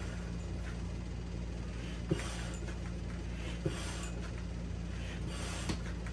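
Hand pump inflating an inflatable paddle board, nearly at 7 PSI: a hiss of air with each stroke, about every one and a half seconds, and a sharp click as each stroke ends.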